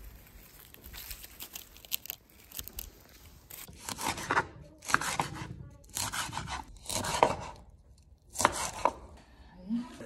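A kitchen knife chopping green onion on a cutting board, in quick runs of strokes about once a second, starting about four seconds in.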